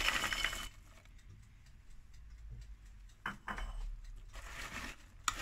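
Chopped walnuts tipped from a small plastic container into a plastic mixing bowl of batter, a short rattling slide in the first half second. Then a wire whisk starts folding them into the batter, with a sharp tap against the bowl about three seconds in and soft stirring noises after it.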